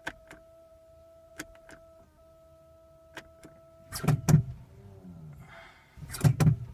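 A 2010 Toyota Prius that won't start gives a steady electrical whine with scattered sharp clicks. The whine stops about four seconds in, and two loud bursts of clicking and clatter follow. These are the 'weird noises' of a car that stays dead with a rock-hard brake pedal, which the owner puts down to an electrical problem.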